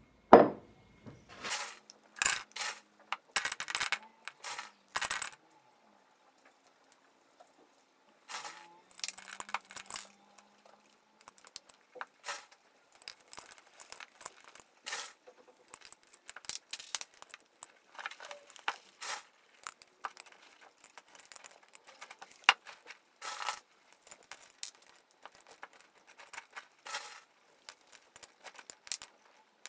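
Expanded clay pebbles clinking and rattling against glass as they are dropped in handfuls around a plant's roots in a glass jar, in repeated clusters of small clicks. A sharp knock near the start.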